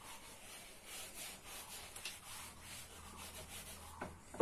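Felt board duster rubbing across a whiteboard in repeated soft wiping strokes, erasing marker writing. Two short, louder sounds come near the end.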